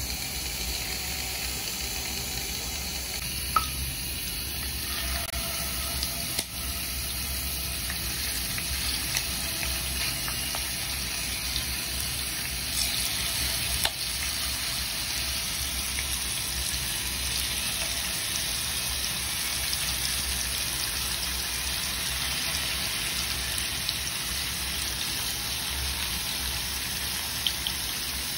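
Marinated chicken pieces frying in hot oil in a non-stick wok: a steady sizzle, with a few sharp ticks here and there.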